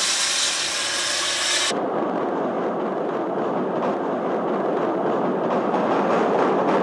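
Loud hiss of escaping steam from a C51-class steam locomotive, cut off abruptly about two seconds in. It gives way to the steady rumble and clatter of a steam train running across a steel truss bridge.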